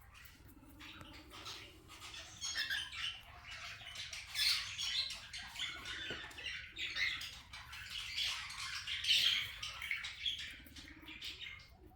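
Kakariki parakeets chattering with short, irregular squawks that come and go.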